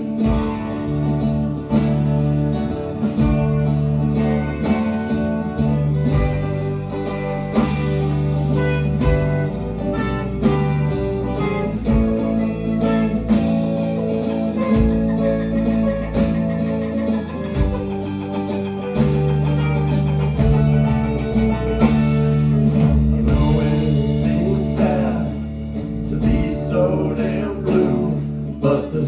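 Live band playing an instrumental stretch of the song: guitars over bass and drums, with a steady beat.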